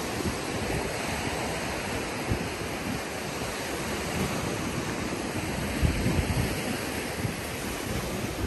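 Steady rushing noise with irregular low gusts of wind buffeting the microphone.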